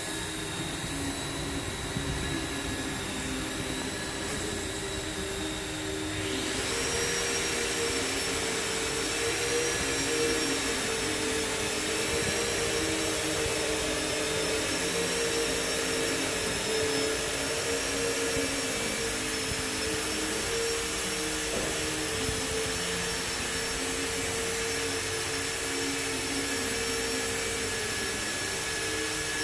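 Steady drone of running machinery with several held tones and a high whine. About six seconds in, a higher whine comes in and it gets slightly louder, as if a machine has started or sped up.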